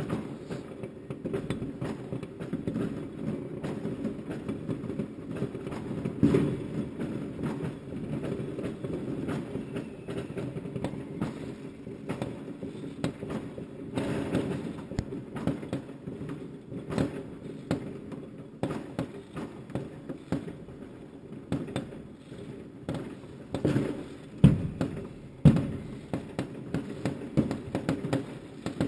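Fireworks going off all around: a dense, continuous crackle of many distant bangs, with a few louder, nearer bangs standing out, several of them late on.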